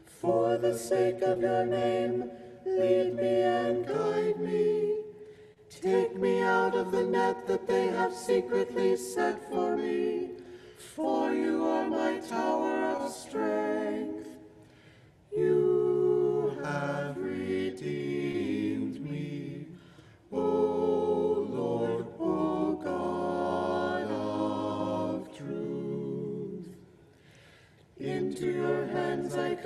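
Small mixed choir of four voices singing unaccompanied in harmony, chanting a psalm in short phrases with brief breaths between them.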